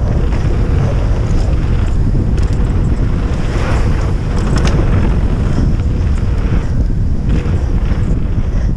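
Wind buffeting the microphone of a camera riding on a downhill mountain bike at speed, mixed with the steady noise of tyres rolling over a gravel and dirt track. A few sharp clicks sound about four to five seconds in.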